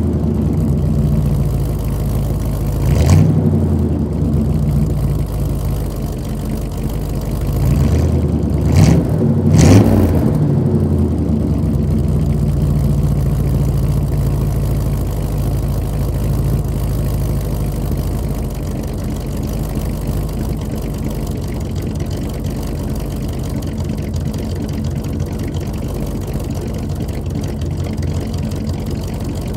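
1986 Chevrolet C-10 pickup's engine, heard from behind at the exhaust, running after a cold start. It is blipped up and back down once about three seconds in and twice in quick succession around nine to ten seconds, then settles into a steady idle.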